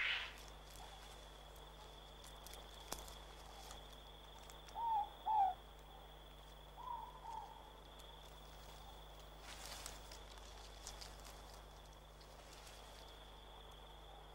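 Quiet night ambience with a steady hiss, and a morepork owl giving its two-note hoot about five seconds in, with a fainter pair of notes near seven seconds. A short scratchy noise sounds at the very start.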